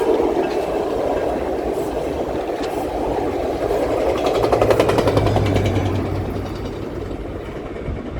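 A train rolling past on the rails, a steady rumble of wheels with a brief low engine hum midway; the sound fades away over the last couple of seconds as the train moves off.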